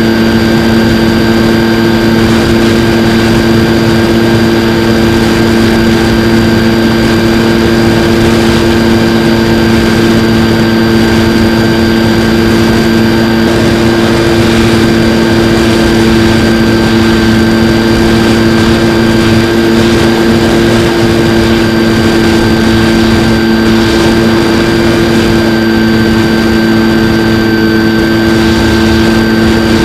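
Skywalker X-8 flying wing's electric pusher motor and propeller, heard close up through the onboard camera. It holds a steady pitch at constant throttle, with a thin high whine above the drone and a constant rush of air noise.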